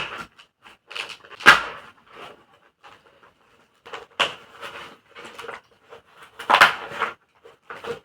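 Helmet's inner padding being pulled out by hand: irregular rustling and fabric handling with several sharp pops as the liner comes free, the loudest about a second and a half in and again near six and a half seconds.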